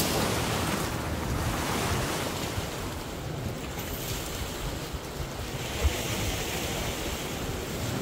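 Sea waves washing against a rocky shore, with wind buffeting the microphone. A short thump about six seconds in.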